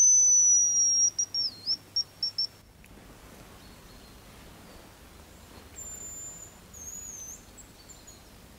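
Hazel grouse decoy whistle blown close by: one long high whistle, dipping near its end, followed by a few short quick notes, imitating the hazel grouse's song. About six seconds in, a much fainter, higher whistle comes back in two phrases: a hazel grouse answering the call.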